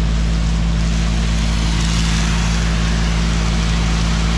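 Fire truck engine running steadily to drive its water pump at about 75 PSI, with the even hiss of a fire hose stream spraying onto the ground.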